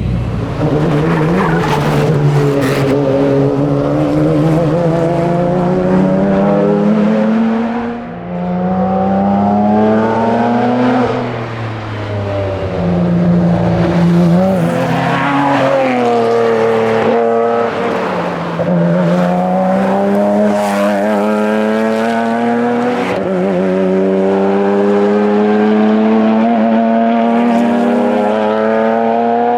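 Porsche Cayman engine driven hard through a run of gears: its pitch climbs steadily in each gear and drops sharply at each shift. The engine eases off briefly a couple of times, about eight and twelve seconds in, before pulling hard again.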